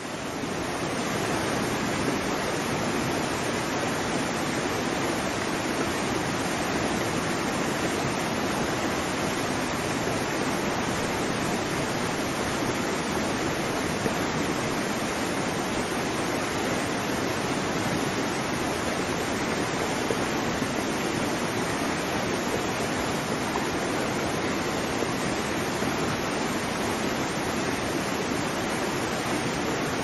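Steady rush of a waterfall, fading up during the first second and then even.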